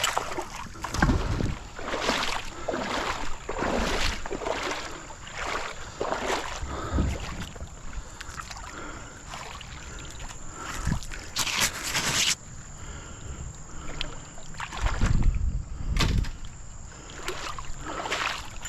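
Kayak paddle strokes splashing in river water, about one a second, with a few low knocks against the hull.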